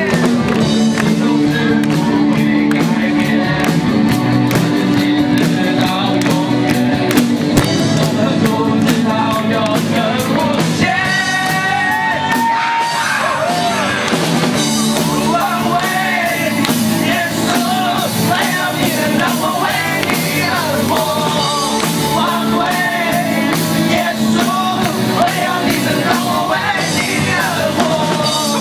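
A live amplified rock band plays with electric guitar and drums while male voices sing a melody into microphones.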